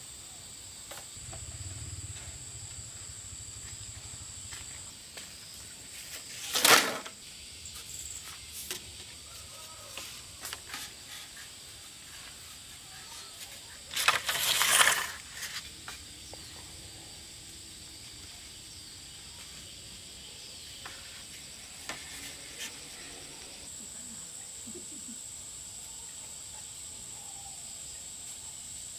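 Insects trilling steadily at a high pitch, with bamboo poles being handled: a sharp knock about seven seconds in, and a clatter and scrape lasting about a second around the middle as poles are pulled along the soil. A few lighter clicks come in between.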